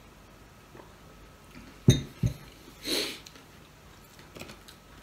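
Heavy glass beer mug set down on the table: two sharp knocks about half a second apart, about two seconds in. A short, loud breath through the nose follows a moment later, just after drinking.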